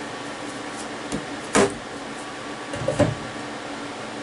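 A steady machine hum with a few clunks and knocks of metal parts being handled during a part change at a paused CNC mill, the two loudest about a second and a half apart.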